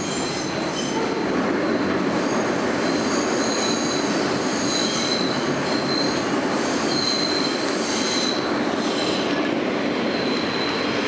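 R160A subway car running on the rails from inside the car, a dense, steady rumble with a high-pitched wheel squeal that comes and goes.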